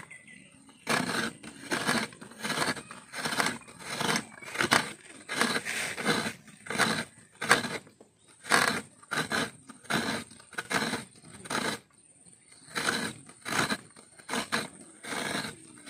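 A coconut half scraped by hand against a small serrated metal coconut grater set in a steel plate, grating the flesh finely: quick rhythmic scraping strokes, about two a second, with a couple of brief pauses.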